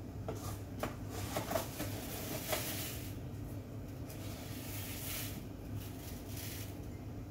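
Espresso machine pump running with a steady low hum while the shot pulls. A few light clicks and knocks in the first seconds, and a soft hiss about halfway.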